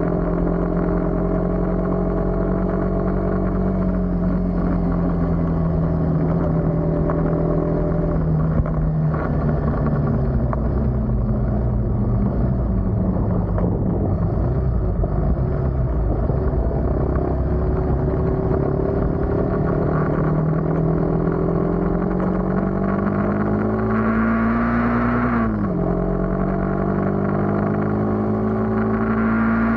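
Motorcycle engine running on the move over a steady rush of wind: its pitch holds, sinks about a third of the way in as it slows, then climbs steadily as it speeds up, drops suddenly at an upshift near the end and climbs again.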